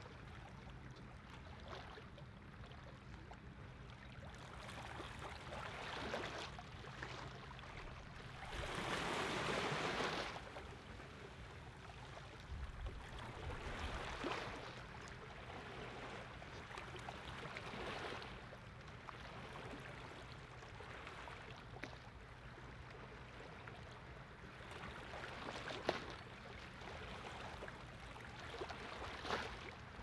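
Low, steady engine hum of boat traffic on the fjord, with small waves washing in every few seconds; the biggest wash comes about nine seconds in.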